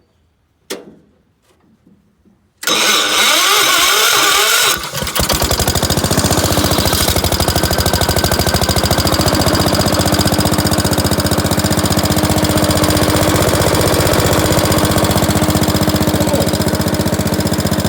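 Gravely tractor engine cranking for about two seconds, then catching and settling into a steady, even run: it fires now that its ignition points have been filed clean and give a spark.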